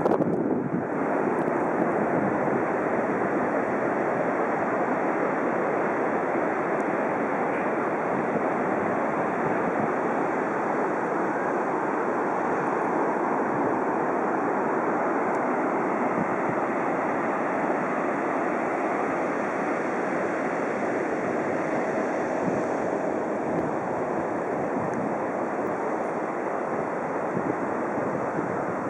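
Steady wash of Pacific Ocean surf.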